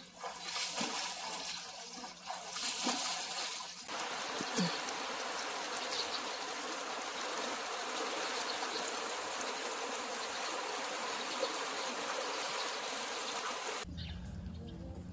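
Swimmer splashing through butterfly strokes in a swimming pool for about four seconds, then a steady hiss of rain falling on the pool water over the splashing of backstroke. Near the end the hiss stops suddenly and gives way to a low hum.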